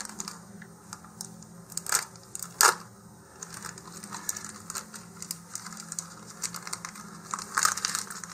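Clear plastic packaging bag crinkling and rustling as it is slit with a hobby knife and pulled open, with two sharp clicks about two seconds in.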